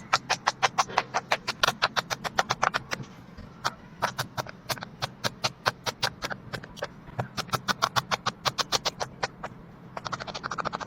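Silicone pop-it fidget toy bubbles being pressed one after another: a rapid run of sharp pops, about five or six a second, with a brief pause a little past three seconds in.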